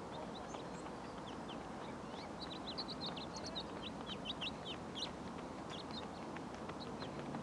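Small birds chirping: a rapid flurry of short, high chirps, busiest in the middle, over a faint steady outdoor background.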